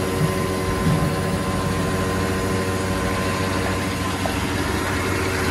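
Steady machine hum with several even tones at a truck fuel pump during diesel refuelling.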